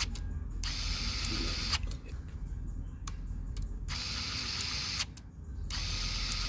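A motorcycle's retractable stand legs being cycled. The mechanism runs with a steady mechanical noise that starts and stops several times, with sharp clicks as the safety switch's arm rides the cam collar and the switch turns on and off, the sign that the cam is set correctly.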